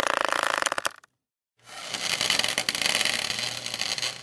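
Foliage rustling and crackling as leaves and twigs are moved, in dense clicks over a hiss. One burst stops about a second in, and another starts about half a second later.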